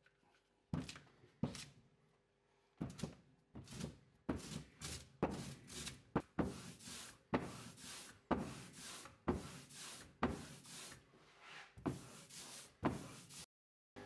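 Lithographic ink roller rolled back and forth over tacky black ink on an inking slab, rolling the ink out: a run of short rolling strokes, roughly two a second, that stops abruptly near the end.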